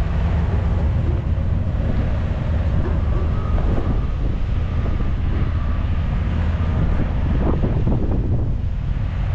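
Wind buffeting the microphone over a steady low hum, with a few brief louder gusts.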